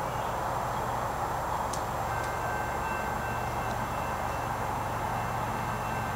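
Steady distant noise of an approaching Canadian Pacific freight train, with faint high steady tones joining about two seconds in.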